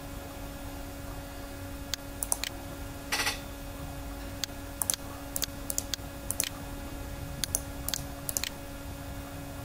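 Scattered clicks of a computer mouse and keyboard during drafting work, with a short rapid run of clicks about three seconds in, over a steady electrical hum.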